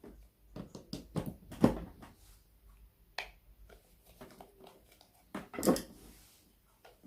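A scattered series of short clicks and knocks from parts being handled, with the two loudest knocks about a second and a half in and near the end; no motor is heard running.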